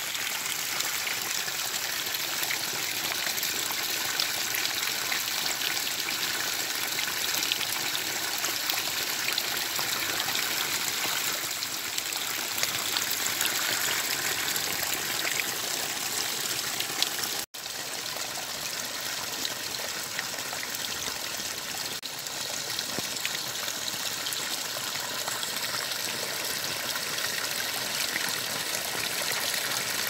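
Small muddy stream running along an earthen channel and spilling over a short drop among rocks, a steady rushing, splashing flow. It cuts out for an instant just past halfway.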